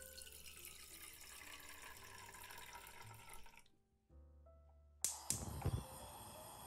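Water pouring into a pot for about three and a half seconds. About five seconds in, a gas stove burner lights: two sharp clicks and a whoosh, then the steady hiss of the flame. Soft background piano music runs underneath.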